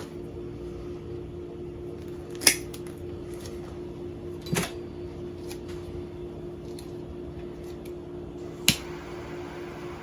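Three sharp clicks a few seconds apart while the nylon starter rope is cut at its mark and its end is burned to seal it, over a steady hum.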